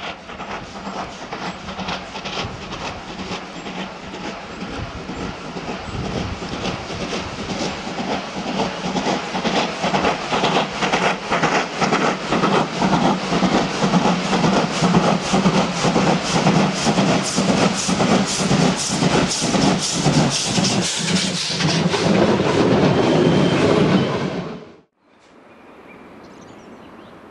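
Steam locomotive 50 3648, a two-cylinder DR class 50, working a train with a hard, uneven, limping exhaust beat caused by valve damage. The beats grow louder as it approaches, then cut off suddenly near the end to a faint distant sound.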